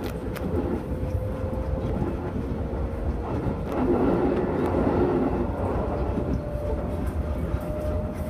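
Shin-Keisei electric commuter train running along the line, heard from inside the front car: steady wheel-and-track rumble with a faint motor whine that rises slowly in pitch, and a louder, rougher passage about halfway through.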